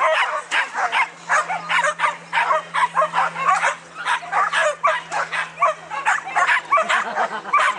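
Flyball dogs barking excitedly and without pause, several sharp barks a second overlapping from more than one dog.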